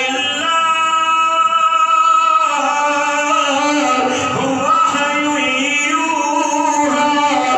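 A man's voice singing a slow, drawn-out melodic line, holding one long note near the start and then moving through shorter turns.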